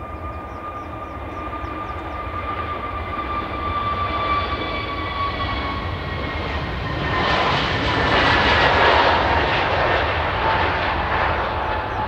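Airbus A321 jet engines at takeoff power: a high turbofan whine that drifts slowly lower, over a constant low rumble. From about seven seconds in, a loud rush of jet noise builds up as the airliner accelerates down the runway.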